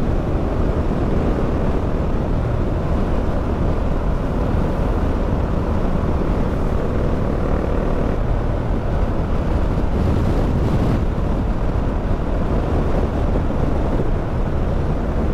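Motorcycle riding at road speed: a steady engine drone mixed with wind rushing over the microphone.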